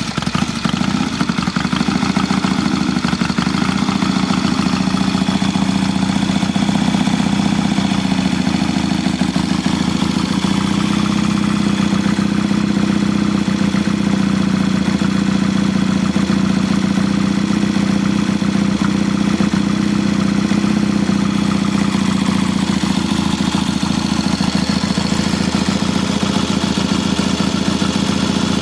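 1973 Triumph T100R Daytona's 500 cc parallel-twin engine running steadily just after a cold kick-start with the choke off.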